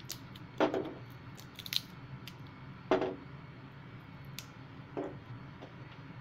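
Garlic cloves being snapped off the bulb by hand, their papery skins crackling: a few sharp cracks, the loudest about half a second and three seconds in, over a steady low hum.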